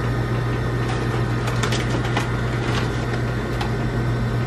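Steady low hum of glass-door refrigerated display freezers running, with a few faint clicks.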